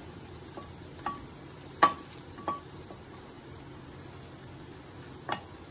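A wooden stick knocking against a metal appam pan as the appams are turned in their wells: about five short clicks with a brief ring, the loudest just before two seconds in. Under them runs a low steady hiss of frying.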